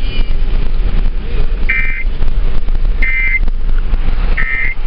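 Steady low rumble of road and wind noise inside a moving car, with three short electronic beeps about a second and a half apart.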